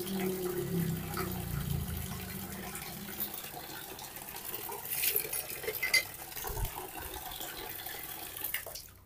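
Water running steadily from the outlet spout of a homemade PVC-pipe water filter, with a few short knocks. The flow dies away near the end as the outlet valve is turned off.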